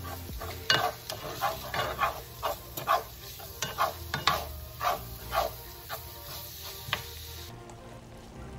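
Ground chicken frying in a nonstick pan, sizzling, while a spatula scrapes and stirs it in short strokes about twice a second. The stirring stops near the end.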